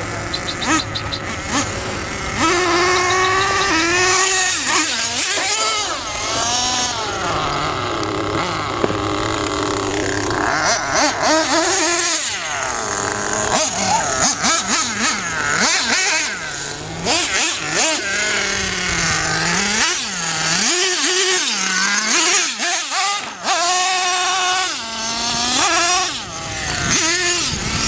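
Nitro RC monster truck's OFNA .28 two-stroke glow engine with a tuned pipe, revving up and down over and over, its pitch rising and falling with the throttle as the truck is driven.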